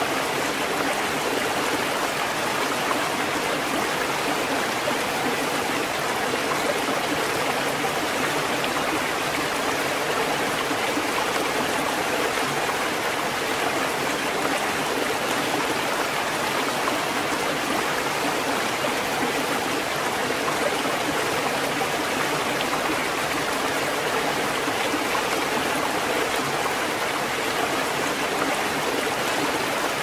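Ocean surf as a continuous rush of water, an even, unbroken wash with no separate swells of individual waves.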